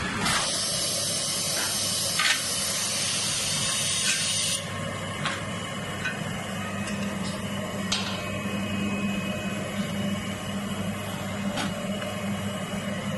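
Shoe-making machine running with a steady low hum. A loud hiss stops suddenly about four and a half seconds in, and a few sharp clicks come at scattered moments.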